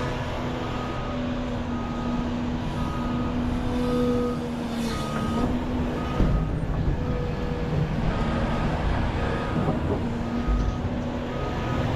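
Heavy diesel earthmoving machinery running steadily, with a backup alarm beeping about once a second.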